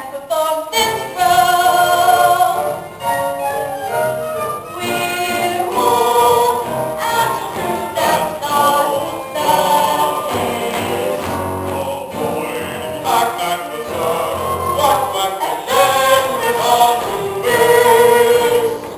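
A group of voices singing in chorus over instrumental accompaniment, a number from a stage musical, with a held note near the end.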